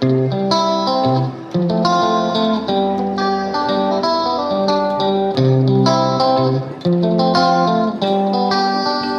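Background music: a guitar piece with plucked notes in a steady rhythm.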